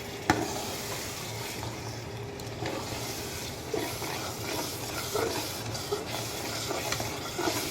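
Chicken pieces sizzling in a karahi of spiced tomato and yogurt masala as they are stirred and sautéed, with a sharp knock of the stirring spoon against the pan just after the start.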